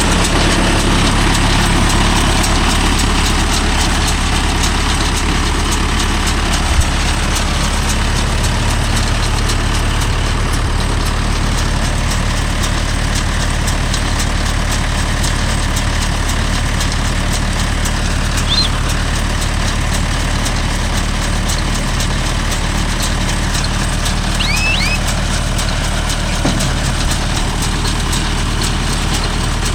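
Mahindra Yuvo Tech Plus 585 tractor's diesel engine running steadily under load while it drives a Bharat baler through paddy straw.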